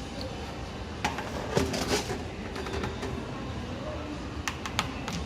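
A cluster of sharp clicks and knocks about a second in, and a few more thin clicks near the end, over a steady background noise.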